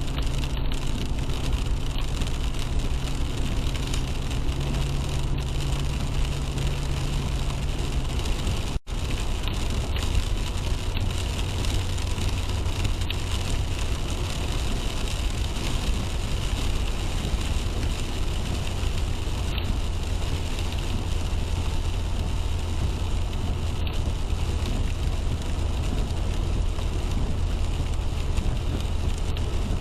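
Steady road noise of a car driving in the rain: tyres on wet pavement and engine hum, with rain on the car. A low hum fades out after about eight seconds, and the sound cuts out for a moment just before nine seconds, after which a deeper rumble carries on.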